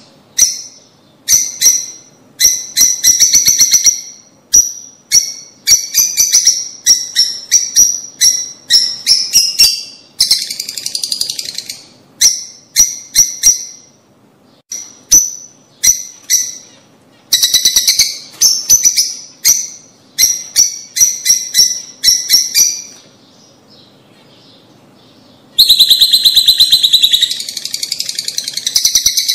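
Lovebirds calling in quick strings of sharp, high chirps. A short lull comes about three-quarters of the way through, then dense, unbroken chattering near the end.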